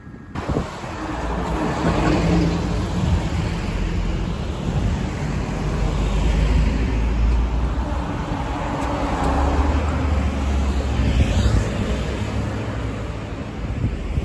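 Blue Isuzu garbage truck driving past on a busy road, its engine running amid other passing traffic.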